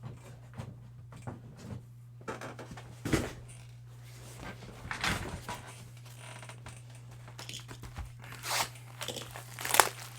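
Trading-card packaging being handled and torn open: irregular crinkling, rustling and scraping, with louder tearing noises about three seconds in, around five seconds in, and near the end.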